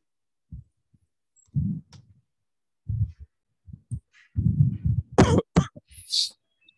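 A person coughing several times, the loudest about five seconds in, followed by a short hiss.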